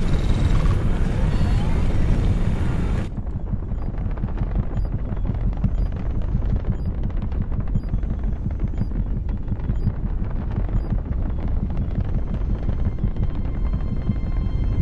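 Deep, steady rumble of a spacecraft engine burn in film sound design, heard first as heavy cabin rumble with hiss. About three seconds in it cuts abruptly to a duller, deeper rumble with the hiss gone.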